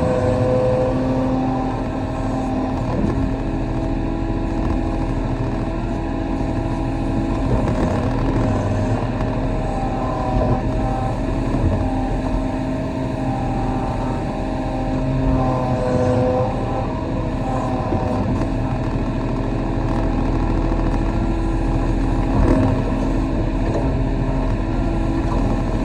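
Kobelco SK35 mini excavator's diesel engine running steadily under working load, with a whining tone that shifts up and down in pitch as the hydraulics work, and an occasional knock.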